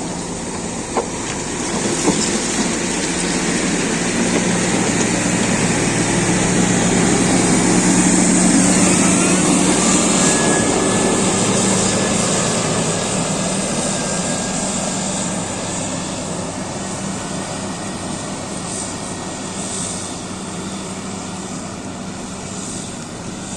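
CAT 140GC motor grader's diesel engine running, swelling to its loudest about eight seconds in and then slowly fading.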